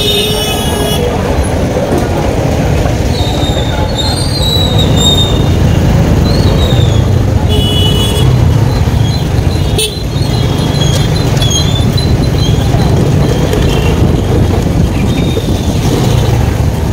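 Riding a motorcycle through highway traffic: steady wind and road rumble on the microphone, with short high-pitched vehicle horn toots several times.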